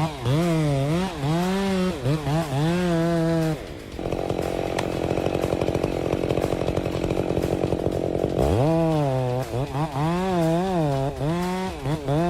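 Two-stroke chainsaw revved up and down in repeated throttle blips. For about four seconds in the middle it settles into a rougher, steadier running as it cuts into wood.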